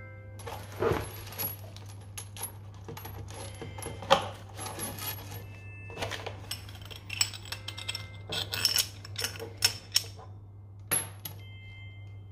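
Metal parts of a chrome kitchen mixer tap and its braided steel flexible hoses clinking and knocking irregularly as they are handled, fitted and fed through the tap's base: a run of sharp clinks, each with a brief metallic ring.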